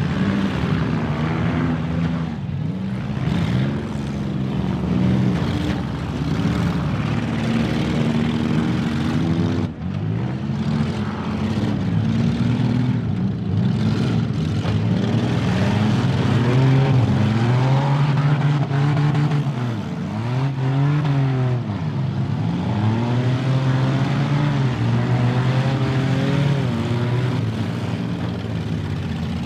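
Several demolition derby cars' engines revving at once, their pitch repeatedly rising and falling as the drivers get on and off the throttle.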